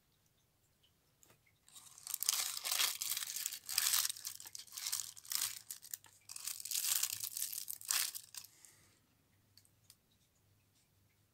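Thin black wrapping crinkling and crumpling as hands unwrap a small jewellery charm from it, in several loud spells from about two seconds in until about nine seconds in.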